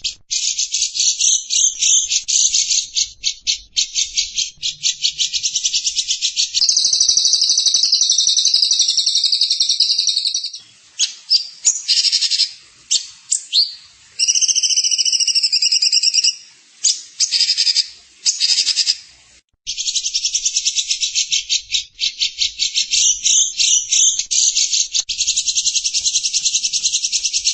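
Songbird master recording: high-pitched, rapid buzzy trills and chirps, with stretches of smoother warbling phrases in the middle and a brief break about two-thirds through.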